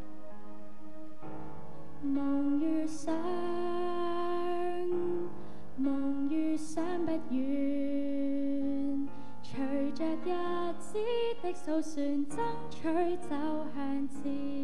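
School choir of girls singing a slow graduation song with piano accompaniment, mostly long held notes.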